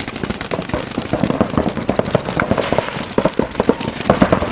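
Many paintball markers firing rapid strings of shots that overlap into a dense, irregular popping.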